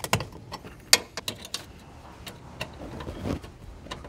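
Plastic grille squeeze clips being pinched with pliers and snapping loose: a series of sharp clicks and snaps, the loudest about a second in, with some rustling of plastic trim between them.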